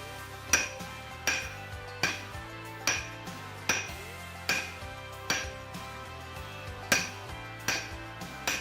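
Blacksmith's hammer striking hot steel on an anvil while forging, a steady rhythm of about eleven blows, each a little under a second apart, with a short metallic ring after each.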